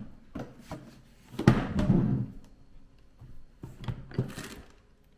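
Handling noises while unpacking a rice cooker and its accessories: a few knocks and thuds, the loudest about a second and a half in, followed by a short rustle.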